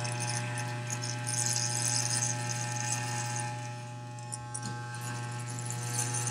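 Electric hair clippers with a number two guard buzzing steadily as they cut hair. A hissing rasp comes and goes as the blades pass through the hair, strongest about a second and a half in and again near the end.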